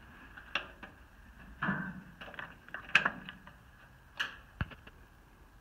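A few scattered clicks and light knocks from the controls of an Oliver 1550 tractor being handled before a cold start, with the sharpest click about three seconds in and a low thump near the end; the engine is not yet running.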